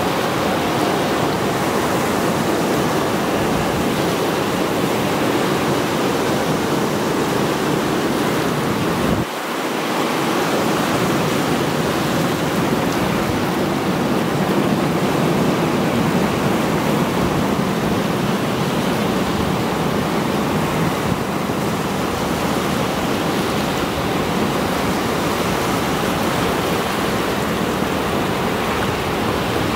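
Sea surf breaking in rows and washing over a rocky shore: a steady rushing of water that dips briefly about nine seconds in.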